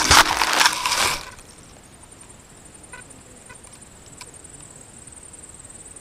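Fixed-wing FPV plane crashing into long grass: a rough scraping rush for about a second, then it stops. Faint ticks follow, and crickets chirp steadily high up.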